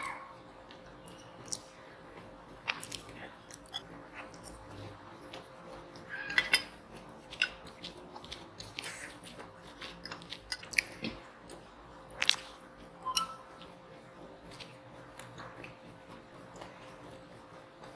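Close-miked chewing of marinated lamb, with soft wet mouth clicks and a few sharp clinks of a metal fork against the plate as meat is cut and picked up.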